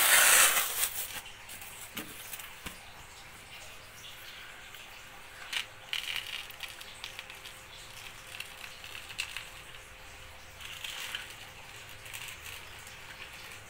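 Plastic toy dump truck pushed by hand through a thin layer of dry sand on a concrete floor: gritty scraping and crunching in uneven spells, loudest in the first second, with scattered light clicks.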